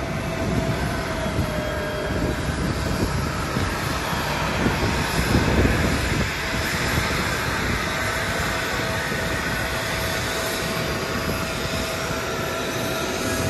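Steady turbine whine and rumble from a Boeing 777-300ER airliner being pushed back by its tug, with a constant tone held throughout over an uneven low rumble.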